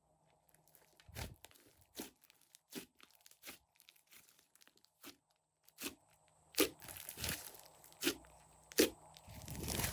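Slime being worked by hand, giving sharp popping clicks about every three-quarters of a second, louder in the second half, and a longer crackling squish near the end.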